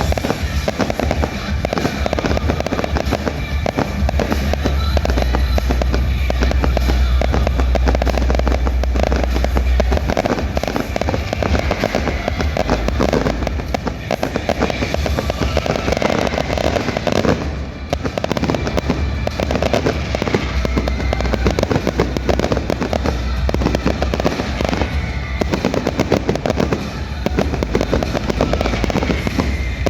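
Fireworks display: continuous bursts and dense crackling set over loud music with a heavy bass.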